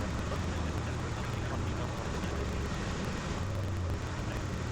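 Cabin noise of a Cessna 172 Skyhawk in flight: the piston engine and propeller give a steady low drone, with air noise over it.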